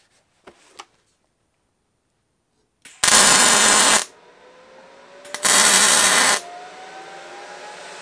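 Wire-feed welder laying two short weld runs on steel plate, each about a second long: the arc starts about three seconds in and again about a second and a half after the first stops. A couple of light clicks come before them.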